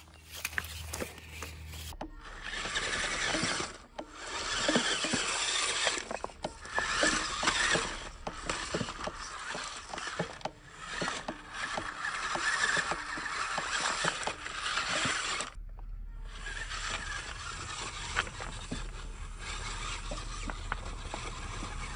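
Small electric RC rock crawler driving over loose river stones: its motor and gears whir in uneven surges as the throttle comes and goes, with the clicks and knocks of tyres and chassis against the rocks. The sound changes abruptly twice, and after the second change the whirring is steadier and a little quieter.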